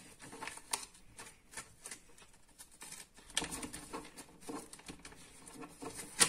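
A sheet of paper being handled and folded by hand: scattered soft crackles and rustles as it is turned and creased, with one sharper click near the end.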